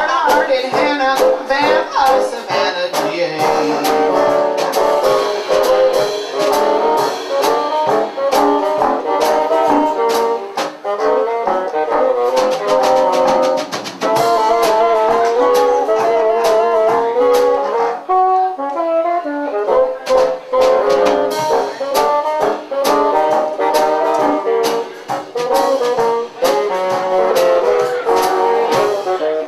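A bassoon quartet, three bassoons and a contrabassoon, with a drum kit playing an instrumental jazz chorus. The reed lines move together over a steady beat, and the texture briefly thins to a few lower notes about two-thirds of the way through.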